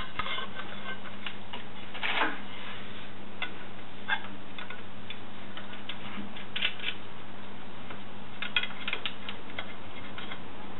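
Scattered light metal clicks and taps from a steel pipe being fitted into a TV antenna's U-bolt mounting bracket and its nut being handled, with a quicker cluster of clicks near the end, over a steady low hum.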